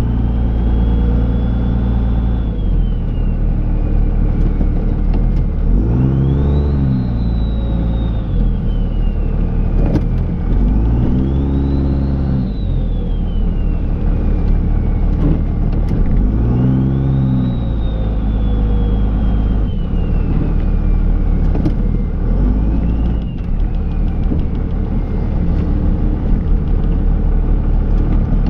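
Dodge Ram's Cummins turbo-diesel engine running while the truck plows snow. It revs up and eases off about every five seconds, with a high whine rising and falling along with the revs.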